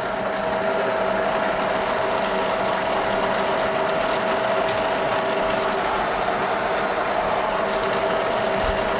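A model 675 milling machine running steadily under power, its spindle gearbox giving a constant whine with a few held tones over a mechanical hum.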